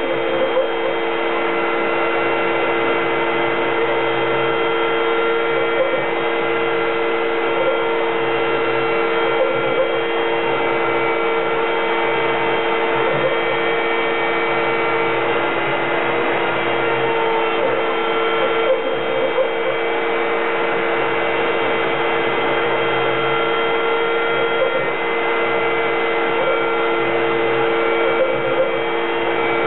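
CNC router's rotary-tool spindle running steadily while cutting wood, a constant high whine with two steady tones over a hiss. A lower hum comes and goes every second or two as the machine's axes move the head.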